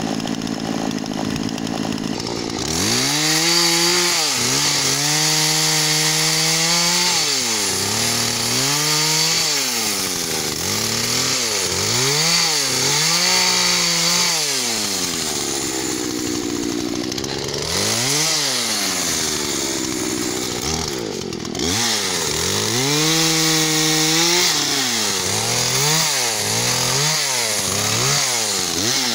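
Husqvarna 236 two-stroke chainsaw idling, then revved to full throttle over and over, each rev climbing, holding briefly and dropping back toward idle as it cuts through fallen branches.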